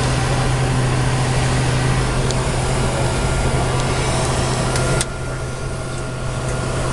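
Steady noise in a KC-135 cockpit: jet engines and air-conditioning airflow, with a constant low hum under a wide hiss. About five seconds in, the hiss drops suddenly and the noise gets a little quieter.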